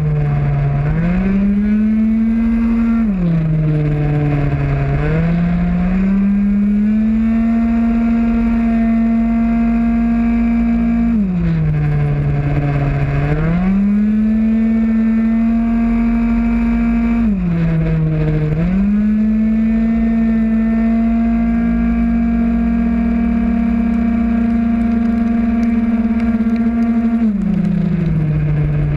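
50cc two-stroke racing scooter engine (MBK Mach G prototype) at full throttle around a track. It holds a high, steady note on the straights and drops in pitch several times as it slows for corners, rising again on the way out.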